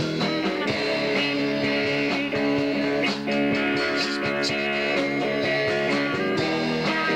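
Rock band playing live: electric guitars over a drum kit, an instrumental passage with no singing.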